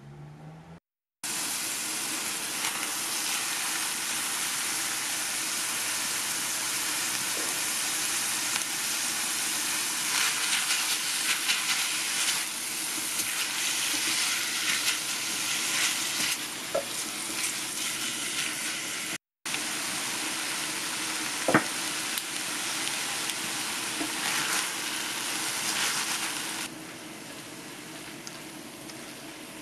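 Meat and kimchi sizzling in a stainless steel pan as a spatula stirs them, with a sharp clink of the utensil against the pan about two-thirds through. The sizzle drops lower a few seconds before the end.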